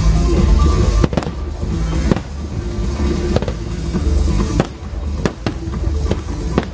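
Aerial fireworks shells bursting, a string of sharp bangs about one a second over a continuous low rumble, with music playing underneath.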